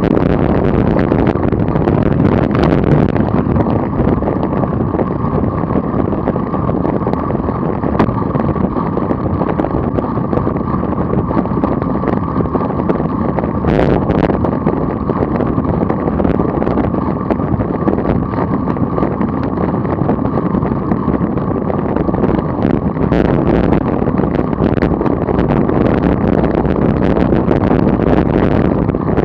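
Steady rush of wind over a bike-mounted action camera's microphone while a road bike rides at around 24 mph, muffled, with nothing above the low and middle range. A few brief clicks about halfway and again a little after.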